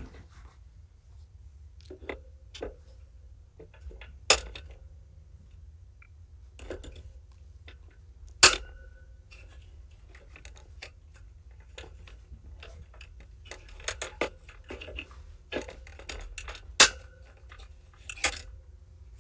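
Irregular metallic clanks and clunks from the pen fence that the camera is mounted on, jostled by kittens crowding the camera. There are many light knocks, some with a short ring, and three sharp loud clanks at about four, eight and a half and seventeen seconds in.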